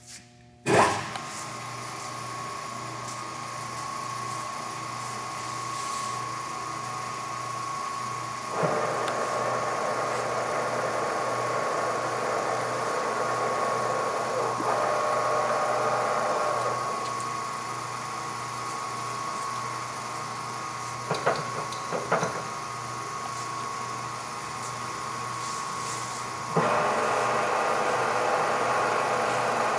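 Graziano SAG 20 engine lathe starting up about a second in, then running with a steady high gear whine from the headstock. It gets louder in steps about a third of the way in and again near the end, with a few sharp clicks in between.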